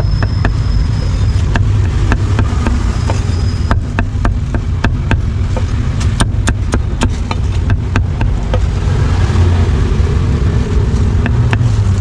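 Meat cleaver chopping roast pork and sausage on a round wooden chopping block: a run of sharp knocks, quickest in the middle and fewer near the end. A steady low rumble of traffic runs underneath.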